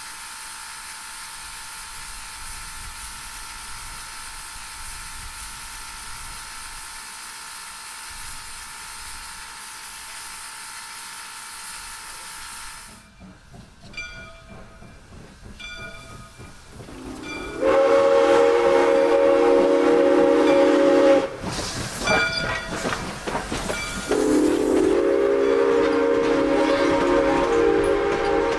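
Soo Line 1003, a 2-8-2 Mikado steam locomotive, hissing steam steadily for about thirteen seconds. After a quieter spell of short faint tones, it sounds two long blasts on its steam whistle, a chord of several notes, the second starting about three seconds after the first ends.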